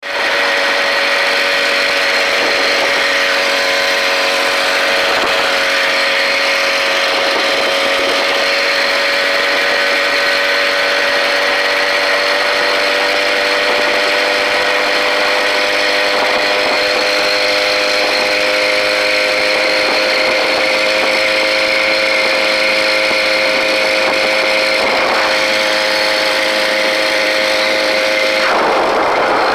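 Small engine of a motorized bicycle running steadily while riding along, a constant buzz that holds nearly the same pitch throughout.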